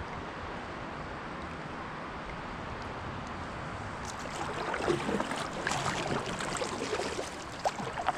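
River water flowing steadily around a kayak. About halfway through, close irregular splashing of water begins and keeps on.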